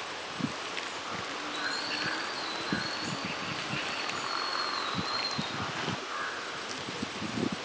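Hand squishing and kneading minced-mutton vada dough in a steel bowl, with irregular soft squelches, over outdoor ambience. A faint, high, steady tone runs through the middle few seconds.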